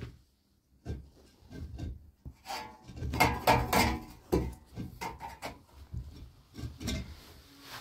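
A hand tool scraping and knocking against a mud wall at the wooden ceiling, in irregular strokes, loudest and busiest about three to four seconds in.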